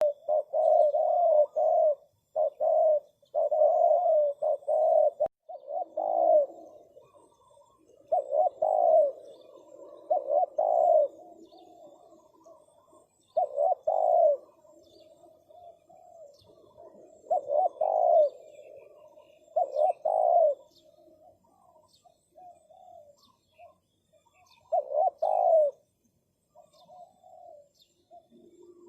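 Spotted doves cooing in repeated phrases, bunched closely at first and then coming every few seconds with softer coos in between. Faint high chirps of small birds sound above them.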